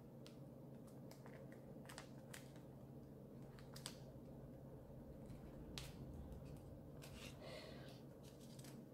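Faint scattered ticks and light crackling of transfer tape and adhesive vinyl sheets being peeled and pressed by hand, over a low steady hum.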